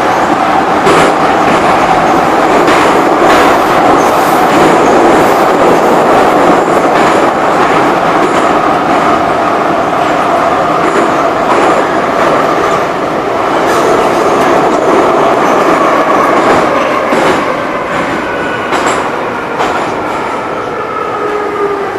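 An old Soviet-built Moscow Metro train of the Ezh/Em series (81-710/712/508T), heard from inside a car as it runs through a tunnel: a loud, steady rumble with a whine and clacks over the rail joints. In the last few seconds the whine falls in pitch and the noise eases as the train slows into a station.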